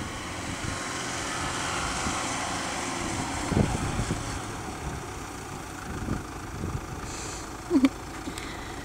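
Jeep Liberty engine running as the 4x4 drives through soft sand, its wheels spinning and throwing up sand; the engine noise swells over the first couple of seconds. A knock comes about three and a half seconds in, and a short, sharp louder sound near the end.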